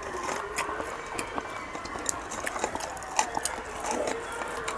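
Close-up chewing of tough fried pork intestine, with irregular wet clicks and smacks.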